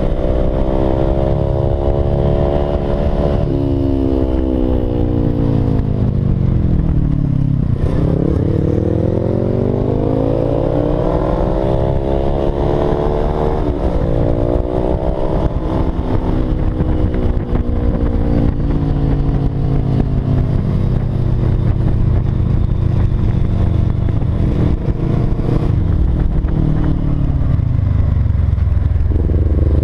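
Motorcycle engine heard from the rider's seat while riding: its pitch falls over the first several seconds, climbs as the throttle opens about eight seconds in, dips and recovers briefly around thirteen seconds, then eases slowly down, dipping and rising again near the end. Wind and road rumble run underneath.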